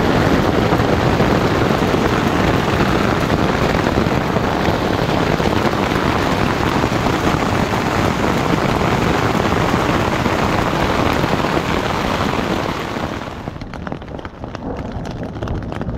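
Hail and heavy rain drumming on a nylon tent fly, heard from inside the tent as a loud, dense, continuous patter. It falls off sharply about 13 seconds in, leaving sparser single hits.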